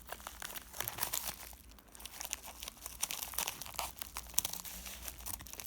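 Plastic packaging crinkling and crackling in irregular bursts as it is handled and pulled open.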